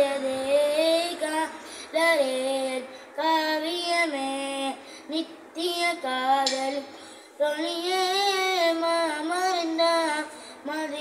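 A boy singing a devotional song solo and unaccompanied, in long held phrases with wavering, ornamented notes and short breaks for breath between them.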